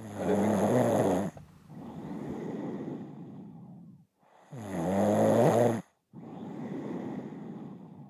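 A sleeping woman snoring: two loud snores about four seconds apart, each followed by a softer, longer breath.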